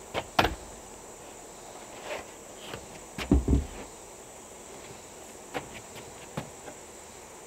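Footsteps and wooden knocks on a plank deck, with a heavier double thump a little past three seconds in, over a steady high-pitched drone of crickets or other insects.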